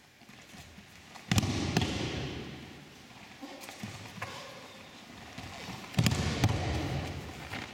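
Two breakfalls onto padded mats, about a second in and again near the end: each is a sharp slap as the thrown aikido partner hits the mat, followed by about a second of scuffing and rustling of cotton gi and hakama as he rolls out. A few light foot taps on the mat fall between the two.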